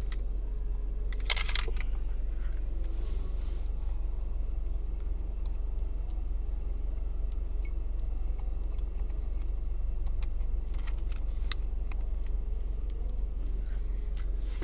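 Electrical connectors and console parts being handled and plugged back in: scattered small clicks and rattles, with a louder scrape about a second and a half in and a cluster of clicks near the end, over a steady low hum.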